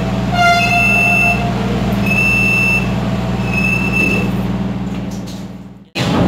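A door warning tone on a new PNR commuter train car sounds as a high beep repeating about every second and a half over the train's steady low hum, signalling that the doors are closing. Near the end the sound fades and cuts off.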